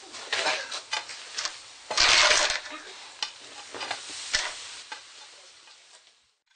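Irregular scraping, crackling and clinking of pieces of the smelted iron bloom, slag and charcoal being handled and moved about, with one louder rasp about two seconds in. It thins out toward the end.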